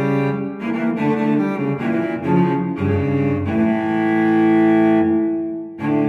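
Background music: a slow, low melody whose notes change every half second or so, then settle into a long held note. It breaks off briefly near the end before a new chord begins.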